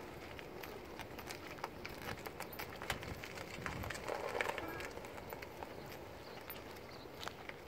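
Footsteps of a person walking on pavement, heard as a run of irregular short clicks over a quiet outdoor background.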